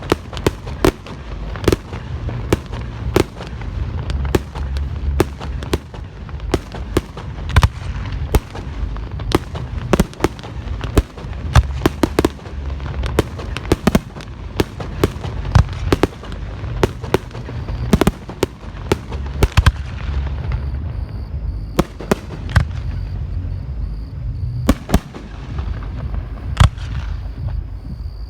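Fireworks display going off in a rapid, unbroken run of sharp bangs and crackling reports, several a second, over a low rumble.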